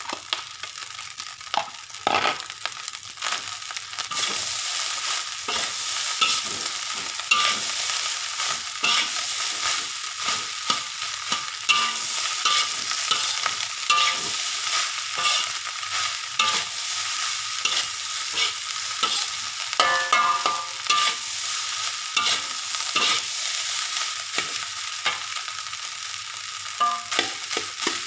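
Metal spatula scraping and knocking against a wok as fried rice is stir-fried, with many quick strokes over a continuous sizzle.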